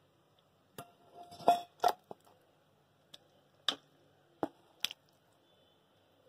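Metal ladle clinking and knocking against a metal pot and bowl while thick bisi bele bath is scooped out and served, about six sharp clinks spread over the few seconds.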